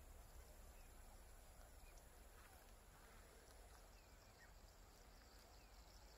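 Near silence: faint outdoor ambience with a low steady rumble and a few faint, short high chirps.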